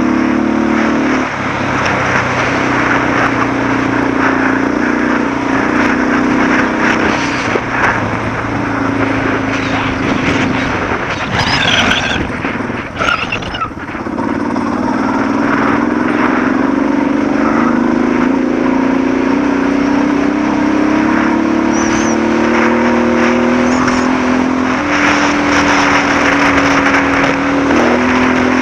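Suzuki DR650's single-cylinder four-stroke engine running under way on a gravel road, its note shifting with the throttle over steady wind and tyre noise. About halfway through the engine note drops off briefly, then comes back and climbs slowly.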